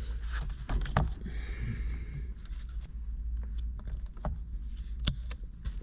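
Plastic airbag connector plugs and their wiring being handled and pressed together: light scattered clicks and rustling, with a sharp click about five seconds in, over a steady low hum.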